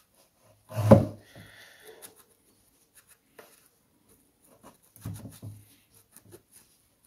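Woven strap being worked back through the plastic strap slot on a pressure sprayer's head, rubbing and scraping against the plastic. A louder knock about a second in is followed by a brief squeak, and another burst of rubbing and clicking comes about five seconds in.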